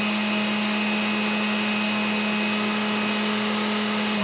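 Dayton AC/DC gearmotor running steadily with no load, a constant motor whine with gear hum, turning in reverse (counterclockwise) off a reversing switch.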